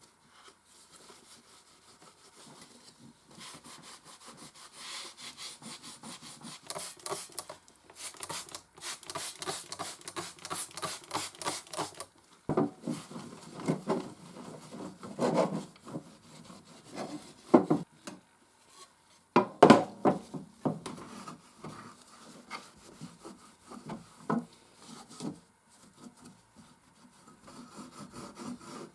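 Rapid rubbing and scrubbing strokes on Consul 221 typewriter parts being cleaned by hand. Partway through they give way to louder, uneven scrapes and knocks.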